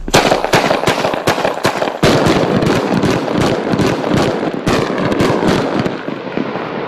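A multi-shot firework cake, knocked onto its side, firing its shells one after another: a rapid string of sharp bangs and crackling bursts that thins out near the end.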